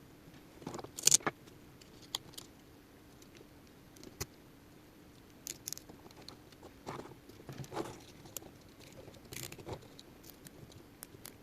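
Small plastic RC car parts and wiring being handled and fitted by hand: irregular light clicks, taps and rustles, with a couple of sharper clicks about a second in.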